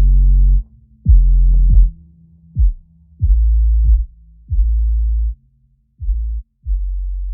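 Background music: a hip-hop style beat of deep sustained bass notes, each starting with a sharp kick that drops in pitch, about one a second with short gaps between them.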